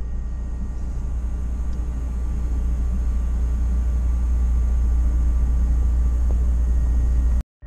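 A steady low rumble that grows a little louder, then cuts off abruptly near the end.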